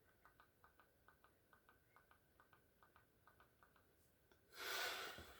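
Near silence with faint rapid ticking, about four to five ticks a second, for the first few seconds; then a person's sharp breath out through the nose near the end, the loudest thing heard.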